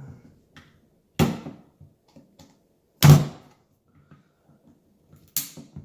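Three hard knocks as a part is worked loose from the garbage disposal, about a second in, about three seconds in (the loudest) and near the end.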